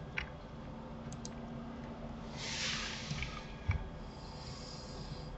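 A soft breath near the microphone about two and a half seconds in, with a few faint computer keyboard and mouse clicks.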